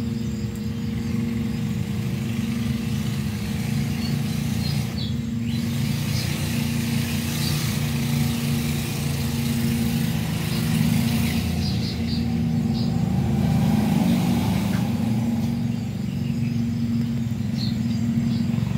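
Steady machine hum at a constant pitch, with a hiss that swells in the middle and a few faint short high chirps.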